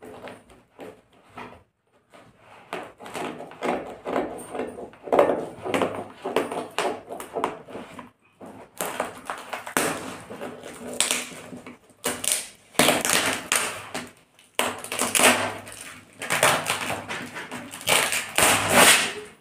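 Scissors cutting and sawing through the packing tape and plastic wrapping of a cardboard parcel, with rustling and crinkling. The strokes are irregular, softer at first and loudest in repeated rasps through the second half.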